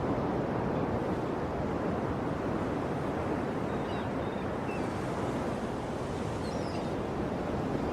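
Ocean surf washing steadily. A few faint bird chirps come through about midway.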